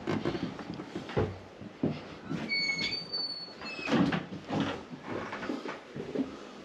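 A glass-panelled wooden shop door pushed open, with knocks and clunks of the door and steps going through it. A brief high beep sounds about two and a half seconds in, with a shorter one just after.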